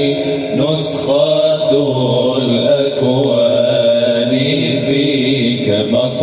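Male voice chanting an Arabic devotional nasheed, drawn-out melodic lines with long held notes and no clear words.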